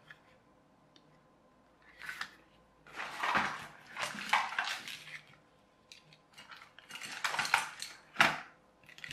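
Hard plastic and metal items clattering and rattling as they are handled on a tabletop, in several irregular bursts, with a sharp knock a little after eight seconds. The items include an AA battery holder with crocodile-clip test leads being fetched.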